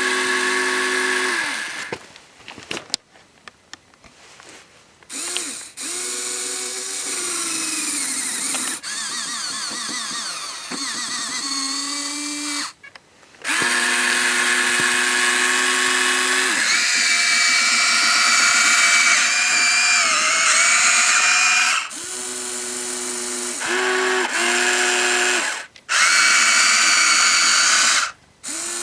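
Small electric motors and plastic gearboxes of a Huina 1593 RC excavator whining in stop-start stretches as its tracks, boom and bucket are worked. The whine shifts in pitch as the motors change load and speed, and it drops out briefly a few times.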